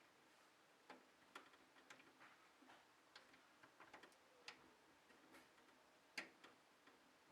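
Faint, irregular clicks and light taps from small hard objects being handled, against near silence.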